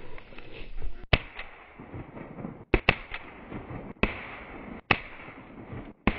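A shotgun shot replayed over and over in an edited loop: about six sharp, loud reports roughly a second apart, each coming right after an abrupt cut in the sound.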